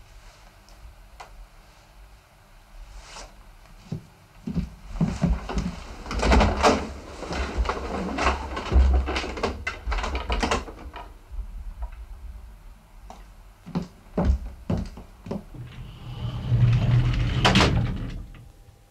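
Irregular knocks, thuds and rustling, like a door being handled and people moving about, busiest in the middle, with a louder rushing swell near the end.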